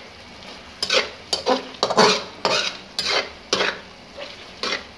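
Metal spoon stirring chicken karahi curry in a large metal karahi, scraping against the pan about two or three times a second, starting about a second in.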